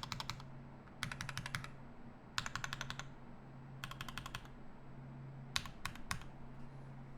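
Typing on a Rama M60-A mechanical keyboard with lubed Durock Linear L7 linear switches and GMK Olivia Dark keycaps. Keystrokes come in quick bursts of about half a second, roughly one burst a second, then a few single strokes near the end, over a faint steady low hum.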